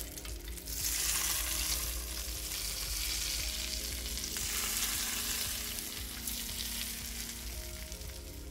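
Hot butter-and-garlic pan sauce sizzling as it is poured from a grill pan over a whole pan-fried soldier bream, in two louder spells that fade near the end.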